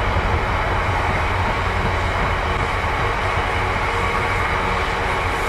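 Loaded HYA bogie hopper wagons of a stone train rolling past close by: a steady rumble of wheels on rail.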